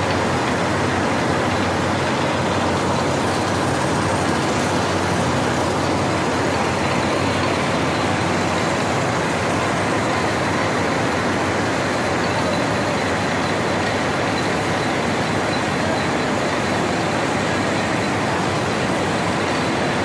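Several cotton gin machines running together: a steady, loud mechanical din that does not let up.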